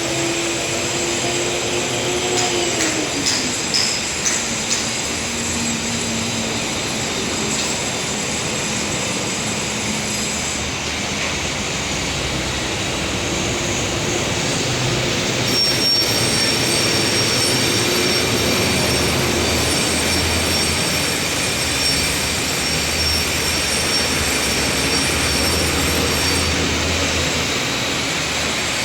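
Loud, steady mechanical noise with drawn-out squealing tones that slide down in pitch, once about two to three seconds in and again in the middle, and a few faint clicks early.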